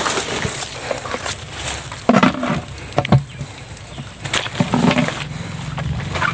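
Footsteps pushing through tall grass and weeds, with irregular rustling and a few sharp knocks at uneven gaps.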